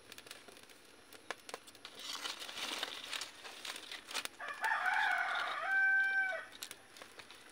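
A rooster crows once, a call of about two seconds that ends on a held note, starting a little past the middle. Before it come a dry rustle and a few light clicks as dry sticks are handled.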